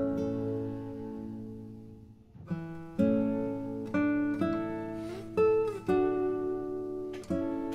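Background instrumental music on a plucked string instrument: chords struck and left to ring out, fading almost away about two seconds in, then a new phrase with a few sliding notes.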